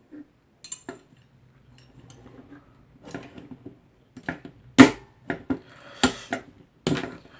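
Scattered sharp clicks and clacks of small hand tools being handled while wiring a Cat6 network point, about ten in all, the loudest about five seconds in.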